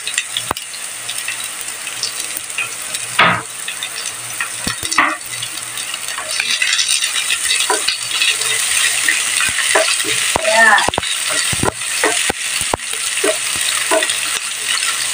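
Freshly added diced onion and minced garlic sizzling in hot oil in a nonstick frying pan, being sautéed. A cooking spoon stirs them, knocking and scraping against the pan a dozen or so times. The sizzle grows a little louder about halfway through.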